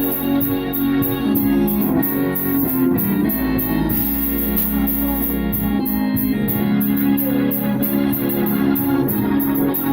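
Gospel organ playing held chords, the chords shifting every second or two.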